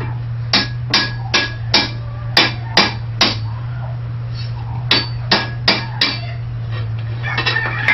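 Hand hammer striking hot steel bar on an anvil to square off a bend: seven blows at about two and a half a second, a pause, then four more, each with a short metallic ring, and lighter taps near the end. A steady low hum runs underneath.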